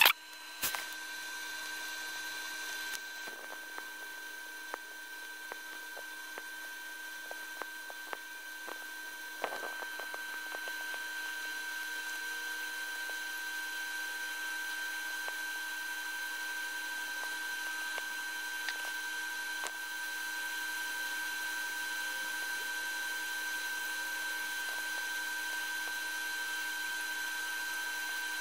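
Laptop cooling fans whining steadily while the processors run a Cinebench render at full load, with a few faint clicks in the first ten seconds. The whine gets a little louder about twenty seconds in.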